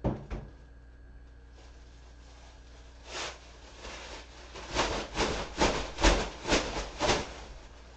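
Two knocks at the very start. Then a plastic trash bag is shaken open with a run of about eight crinkly rustling flaps, roughly two a second, loudest near the middle of the run.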